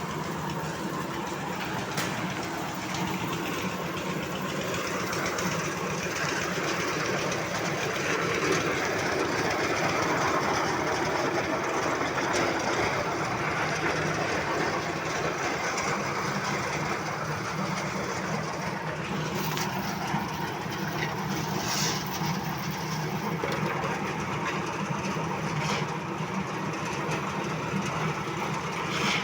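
Concrete mixer running steadily, its drum turning with a continuous rumble and rattle.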